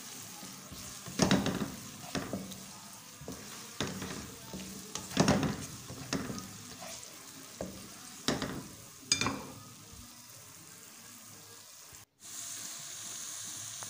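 Minced garlic, ginger and sliced green chillies sizzling in hot oil in a karahi, with a spatula scraping and knocking against the pan every second or two. Near the end the sound drops out for a moment and comes back as a steadier sizzle.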